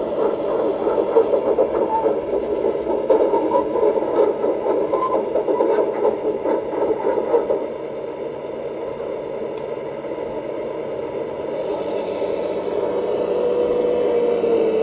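Kabolite Kobelco SK350 RC hydraulic excavator working its boom, arm and bucket: a busy, fluctuating mechanical whirr from the electric hydraulic pump and valves, with a steady high whine that cuts off about twelve seconds in.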